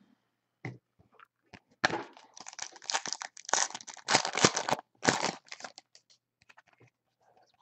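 A trading-card pack's foil wrapper being torn open and crinkled by hand: a run of crackly rustling bursts from about two seconds in, thinning out near the end.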